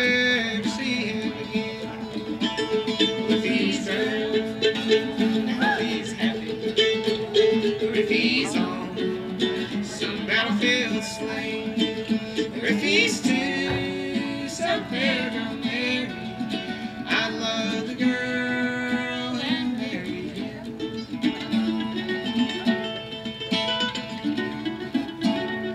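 Acoustic string band playing an instrumental break in a folk-bluegrass ballad: fiddle melody over picked plucked strings.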